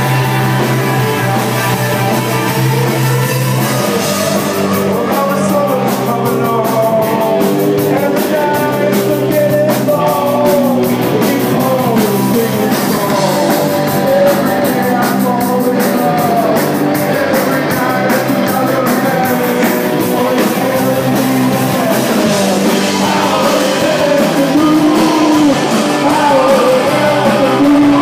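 Live indie rock band playing a song: electric guitars over bass and drums, with a steadier, denser drum beat from about four seconds in.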